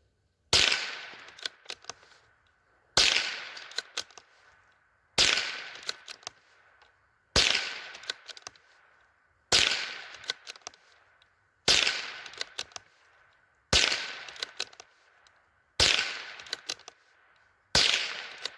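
Nine shots from a Howa M1100 semi-automatic .22 LR rifle, fired singly about two seconds apart, each with a short echoing tail and a few light clicks after it. The rifle cycles all nine rounds from the magazine without a malfunction.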